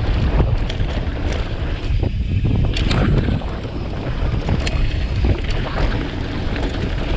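Wind buffeting the microphone: a heavy, fluctuating rumble with scattered small clicks.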